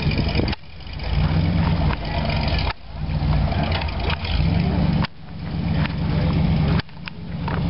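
Car engines running as cars drive slowly past, among them a 1960 Chevrolet Impala: a low, steady engine hum that drops out suddenly four times and swells back each time.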